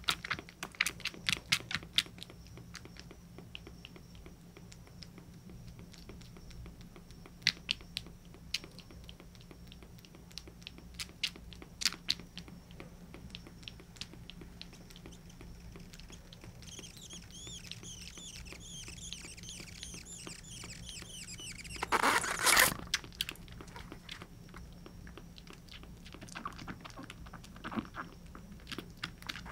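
Young kitten suckling milk from a nursing bottle: irregular wet sucking clicks and smacks, thickest in the first two seconds and scattered after. Faint high squeaking comes about 17 to 21 seconds in, then a brief loud rustle around 22 seconds, over a steady low hum.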